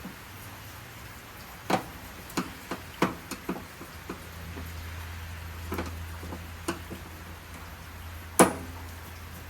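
Sharp metallic clicks and knocks as screws are taken out of the grease pan holder of a pellet smoker's sheet-metal body, coming irregularly with the loudest knock near the end. A low steady hum comes in about four seconds in.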